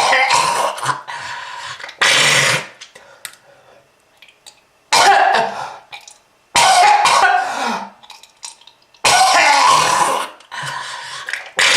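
A person coughing in heavy fits, a smoker's cough: about five bouts, each starting suddenly and lasting about a second, with short quiet gaps between.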